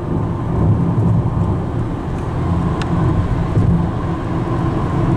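Steady road and engine rumble inside a car's cabin while driving at highway speed, with a faint click about three seconds in.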